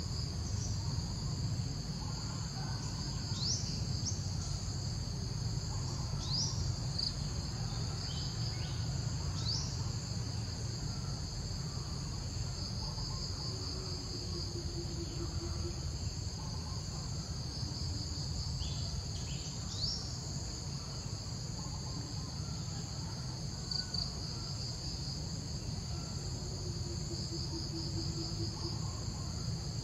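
A steady, high shrill chorus of insects with a pulsing texture, with a few short rising chirps over it, mostly in the first third and once more about two-thirds through.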